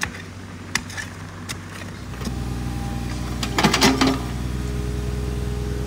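Mini excavator's diesel engine starts running steadily about two seconds in, a low, even drone, with a short scraping clatter just before the middle as the bucket works in the soil. Before it comes in, only a low hum and a few faint clicks.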